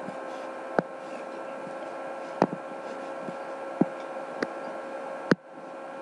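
Steady electrical hum and hiss with a few thin steady whine tones, broken by about five sharp clicks, the loudest a little past five seconds in.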